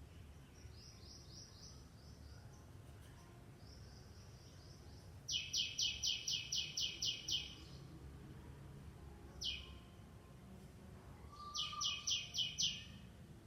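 A songbird singing phrases of quick, repeated, high, falling notes, about four or five a second: a faint phrase near the start, a loud one about five seconds in, a single note, then another loud phrase near the end.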